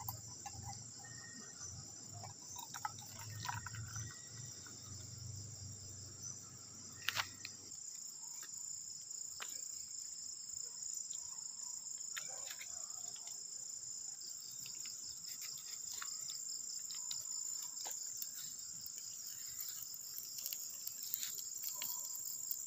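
Steady high-pitched chorus of crickets chirping at night, with a few scattered clicks. A low hum underneath stops about eight seconds in.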